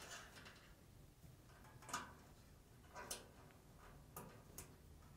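Near silence with four faint, sharp clicks spread over the few seconds, two of them close together near the end: plastic wiring-harness connector and wire retainer being handled and snapped on a dryer.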